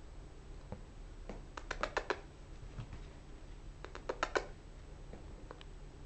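Two quick runs of light clicks or taps, about five each and roughly two seconds apart, with a few single clicks between, over a faint steady room hum.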